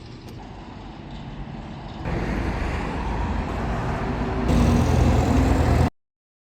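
Minsk 125 two-stroke single-cylinder motorcycle engine running, in short joined clips that change abruptly about two seconds in and again past four seconds, loudest in the last stretch, then cutting off suddenly about six seconds in.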